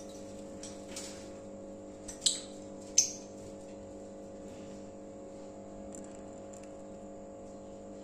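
Two short, shrill lovebird chirps, a little over two seconds in and again about a second later, the second one falling in pitch, over a steady low hum.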